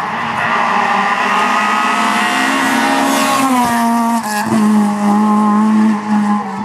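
Rally car engine running hard at high revs, loud. Its pitch drops in steps about three and a half and four and a half seconds in, then holds steady.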